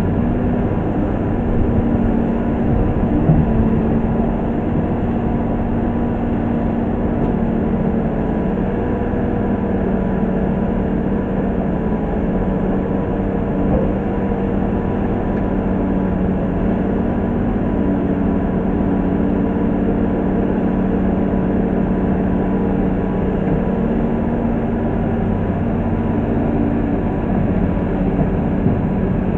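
Komatsu PC200-6 excavator's six-cylinder diesel engine running steadily under hydraulic load while it works its boom and bucket. The engine note shifts slightly in pitch now and then.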